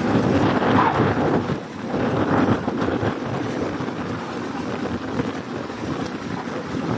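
Rushing wind on the microphone over continuous splashing water, from farmed milkfish thrashing at the surface of a crowded lake net cage.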